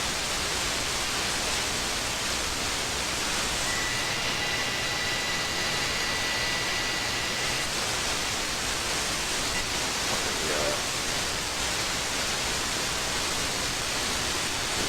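Steady static hiss from an RTL-SDR receiver demodulating AM on the 26 MHz CB band with no station present: just noise. About four seconds in, a faint high whistle comes in for a few seconds, then fades out.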